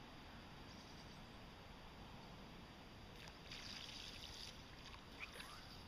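Near silence: faint outdoor river ambience with quiet water. A brief soft hiss comes about three and a half seconds in, and a short faint squeak comes near the end.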